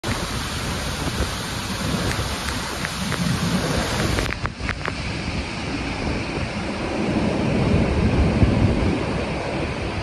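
Steady roar of a large waterfall in heavy flow, falling and churning water over rocks. A brief dip and a few clicks come a little over four seconds in.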